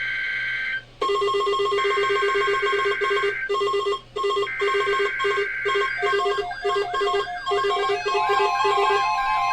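Emergency Alert System SAME header: three bursts of warbling digital data tones, each about a second and a half long, over a rapid pulsing beep pattern. The beeps turn into an electronic tune in the last few seconds.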